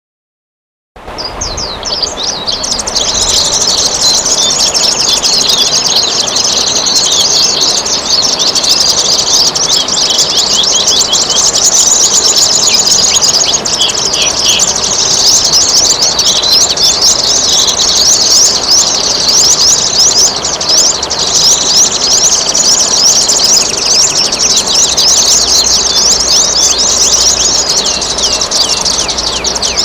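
Dense chorus of many small songbirds chirping rapidly and continuously over trickling water, starting about a second in.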